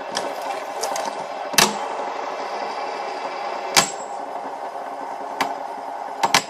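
Several fidget spinners whirring on their bearings, a steady buzzing hum. A few sharp clicks cut through it, the loudest about a second and a half in and again near four seconds, with smaller ones near the end.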